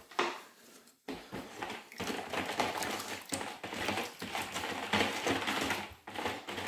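Saw chains rattling and clinking, link on link and against a plastic tub, as they are stirred in water with a wooden spoon. A knock comes at the start, and a dense, steady clatter begins about a second in.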